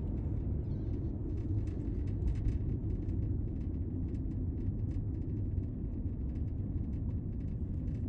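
A car running, heard from inside the cabin as a steady low rumble.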